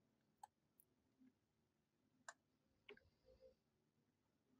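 Near silence, broken by a few faint, short clicks of a computer mouse, about half a second, two and a quarter and three seconds in.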